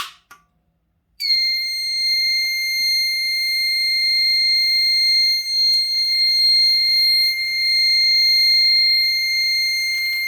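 A manual fire alarm pull station is pulled with a sharp click, and about a second later the fire alarm starts sounding: a loud, steady, high-pitched electronic tone that holds without a break. It is the alarm condition the pull station triggers on the conventional panel.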